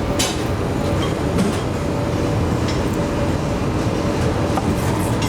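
A steady low rumble with a faint hum, with a few light knife taps on a cutting board as broccolini is trimmed.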